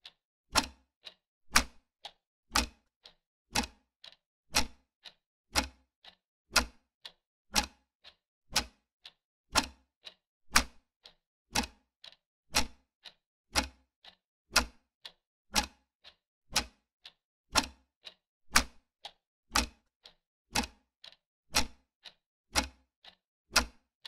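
Clock-tick sound effect: a loud tick once a second with a fainter tick halfway between, a steady tick-tock marking off each second of a countdown timer.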